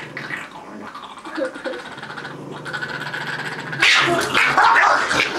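Small long-haired dogs growling at each other, breaking into loud snarling and scuffling about four seconds in.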